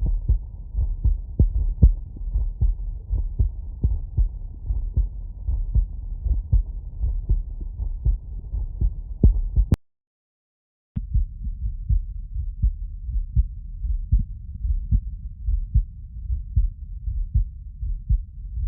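Normal heart sounds heard through a stethoscope: a steady run of low, regular thumps. About halfway through they stop with a click and a second of silence, then resume duller and more muffled.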